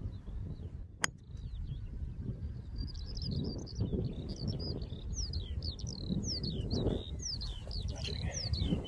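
Golf iron striking the ball on a short pitch shot: one sharp click about a second in. Gusty wind buffets the microphone throughout. From about three seconds in, a bird sings a rapid run of high chirping notes.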